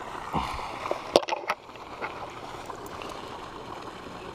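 Handling noise: a quick run of sharp knocks and thumps about a second in as a small largemouth bass is grabbed off the muddy bank. Under it runs a steady outdoor hiss.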